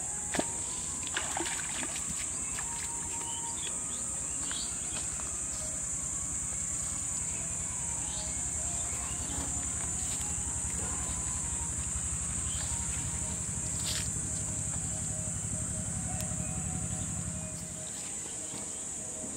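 Steady high-pitched chorus of insects, with a low rumble underneath that drops away near the end and a few faint clicks.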